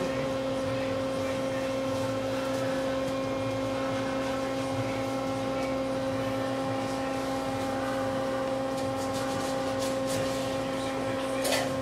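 Steady electrical hum with a constant pitched drone from running kitchen equipment, with a few faint clicks late on and a short clatter near the end.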